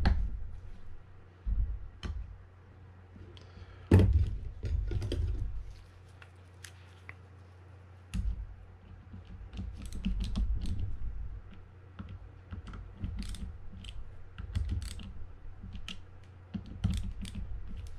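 Screws on a Daiwa Sealine 300H fishing reel being tightened down with a small screwdriver: scattered light clicks and taps of the driver and metal reel parts being handled, with a louder knock about four seconds in.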